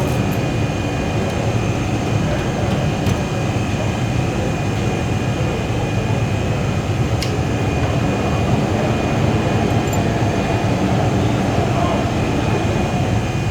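Lathe running steadily: a constant machine hum with a thin, high, steady whine over it. A single sharp click comes about seven seconds in.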